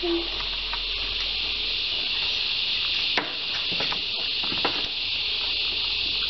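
A steady high hiss, with a few clicks and rustles of insulated battery cables being handled. The sharpest click comes about three seconds in and another about a second and a half later.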